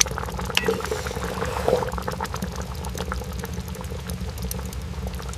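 Liquid bubbling at a simmer, with many small pops and clicks over a steady low hum.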